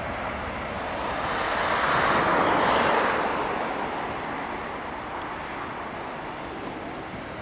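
Airbus A321-211 airliner's CFM56 turbofan engines: a broad jet rush that swells to a peak about two and a half seconds in, with a brief high hiss at the loudest point, then slowly fades as the aircraft passes.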